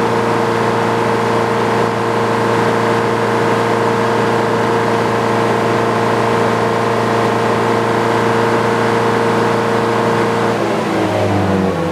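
Sawmill engine running steadily at a constant speed, then changing speed with its pitch stepping about in the last second or so.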